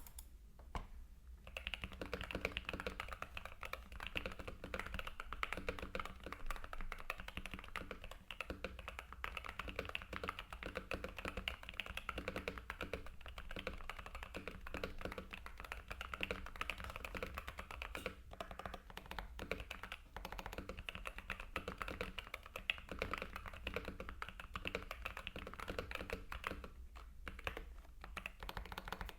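Keychron keyboard fitted with magnetic (Hall-effect) switches being typed on quickly: a continuous stream of key clacks, with a couple of short pauses.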